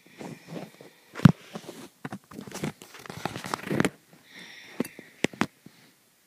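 Handling noise of plush toys moved about close to the microphone: irregular rustling, clicks and knocks, with one loud thump about a second in.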